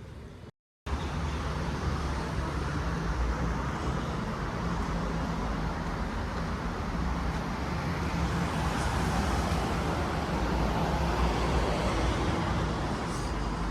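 Steady vehicle rumble and rush, with a deep low hum under it, building slightly in the second half, after a brief dropout near the start.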